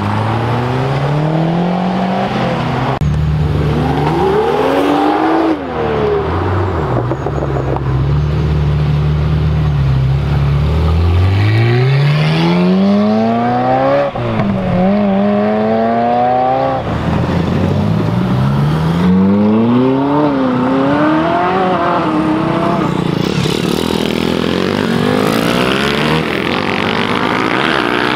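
Performance car engines revving hard as cars pull away one after another. An engine holds steady revs for several seconds. Then a Ferrari V8 accelerates away with long rising sweeps in pitch and sudden drops at each gear change.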